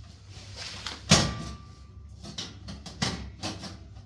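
Metal parts of a new gas cooker being set in place: a sharp clank with a brief metallic ring about a second in, then a second knock and a few lighter clicks.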